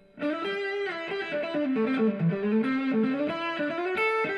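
Instrumental background music: a plucked melody of quick stepping notes that starts just after the beginning.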